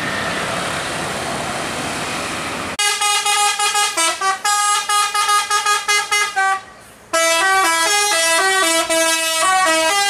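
A noisy rumble of road and engine sound, then, about three seconds in, a tour bus's Basuri telolet horn starts playing a tune of quick stepped notes. The tune breaks off briefly about two-thirds of the way through and starts again.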